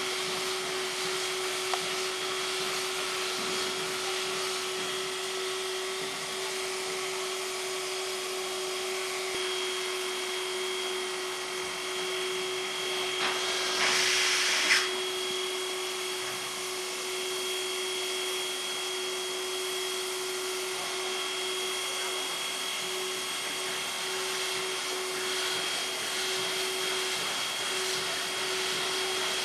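Class 498.1 'Albatros' steam locomotive under steam on a depot turntable: a steady hiss with a constant machine whine. A louder rush of hissing steam about halfway through lasts roughly two seconds and ends with a sharp click.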